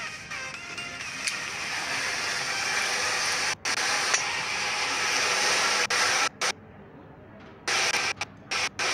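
Hissing, fizzing rush of a large mass of matchstick heads catching fire, growing louder over the first few seconds as the flames spread. From about six seconds in the hiss cuts in and out abruptly several times.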